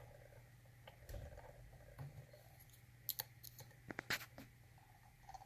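A few faint small metal clicks and taps from handling the pick in the lock, bunched about three to four seconds in, over a steady low hum.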